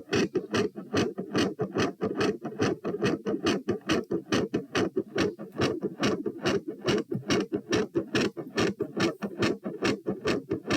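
Fast heartbeat heard over the pulmonary area of the chest: each beat a quiet first heart sound followed by a louder second heart sound, in a quick, steady rhythm of short low thuds.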